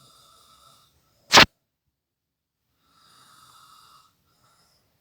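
A person snoring: faint, whistly breaths about a second long, roughly three seconds apart. A single sharp, loud click comes about a second and a half in.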